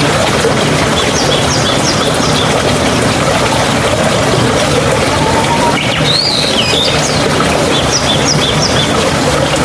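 Steady rush of flowing water with songbirds calling over it: a quick run of four short chirps about a second and a half in, a looping whistled call around six seconds, and another run of chirps near the end.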